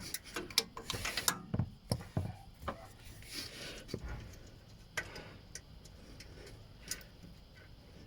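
Ratcheting wrench clicking in short runs, with sharp metal clicks and knocks, as a motor-mount bolt is backed out.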